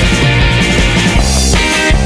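Rock music with electric guitar and a steady beat.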